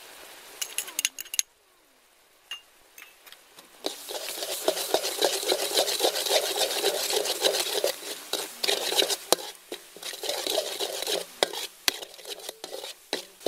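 Metal spoon stirring and scraping rapidly around a metal wok of frying shrimp-paste sauce with dried shrimp and chili, a dense run of strokes from about four seconds in until near the end. There are a few sharp clinks at the start as the dried shrimp are tipped in.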